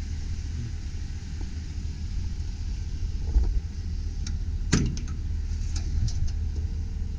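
Steady low rumble of the Chevrolet Silverado 2500's engine idling, with a sharp clunk a little over halfway through.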